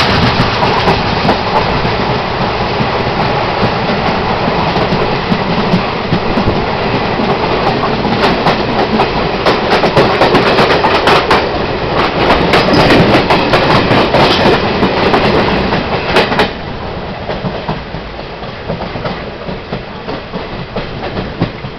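A passenger train passing close by on the next track, heard through the open window of a moving train: a loud rushing rumble with a rapid clatter of wheels over rail joints. About sixteen seconds in the noise drops sharply as the passing train clears, leaving the quieter running and clickety-clack of the train's own wheels.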